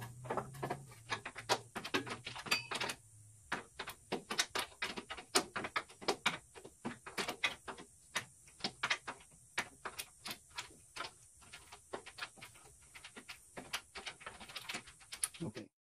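Steel open-end wrench clicking and scraping on a grille bolt's nut, several irregular metal clicks a second, as the nut is inched off a little at a time while the bolt spins.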